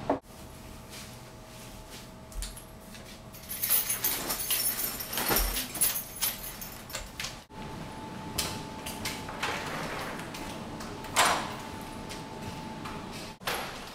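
Rustling, jingling and clattering of belongings being handled. About eleven seconds in comes a sharp click, the loudest sound, as a door is unlatched and opened.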